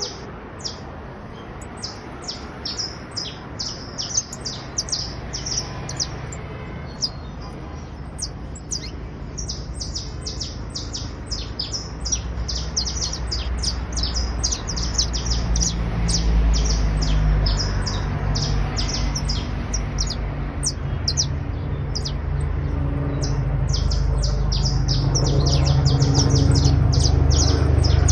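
Criollo canary of the basto type singing: long trilling runs of quick, high notes that thin out briefly a few seconds in. A low rumble builds underneath in the second half.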